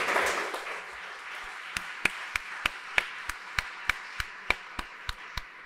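Audience applause that fades, and from about two seconds in a single person's hand claps close to the microphone, steady at about three a second.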